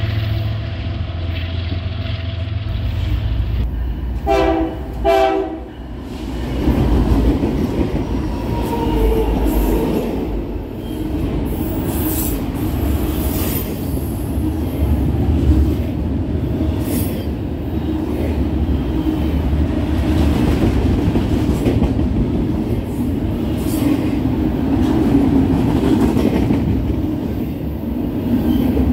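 Freight train approaching with a steady diesel locomotive drone, its horn sounding two short blasts about four seconds in. Then double-stack container cars roll past close by, their wheels rumbling and clattering steadily on the rails, with brief high wheel squeals now and then.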